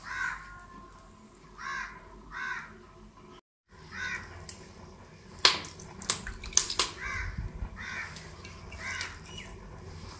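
Crows cawing: short calls repeated throughout, often in pairs. Several sharp clicks come about halfway through, and the sound cuts out for a moment near the start.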